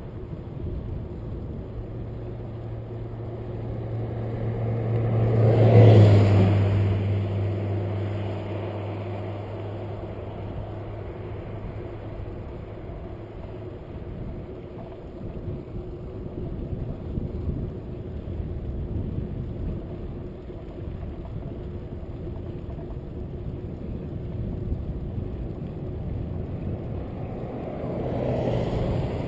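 A motor vehicle passes the bicycle, its engine and tyres swelling to a peak about six seconds in and then fading with a slight drop in pitch. Steady wind and road noise from riding run underneath, and a second, smaller vehicle swell comes near the end.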